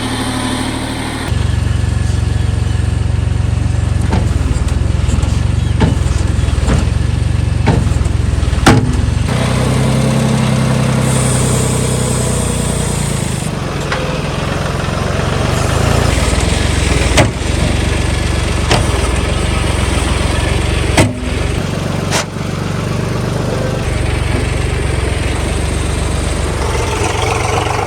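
Tractor diesel engine running steadily under load while working a backhoe loader attachment; its note grows louder about a second in. A few sharp knocks stand out above the engine.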